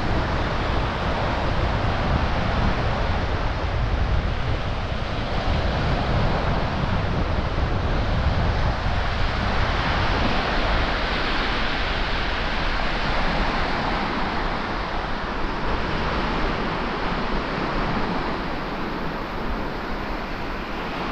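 Surf washing onto the beach with wind buffeting the microphone: a steady rushing noise with rough low gusts underneath.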